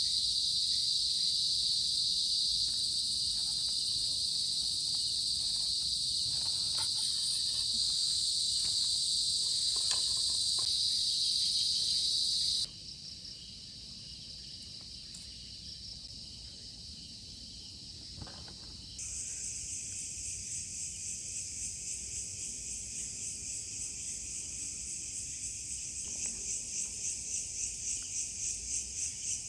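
Dense, high-pitched chorus of insects. It drops and changes character abruptly about 13 seconds in and again about 19 seconds in. Near the end it takes on a fast, even pulsing.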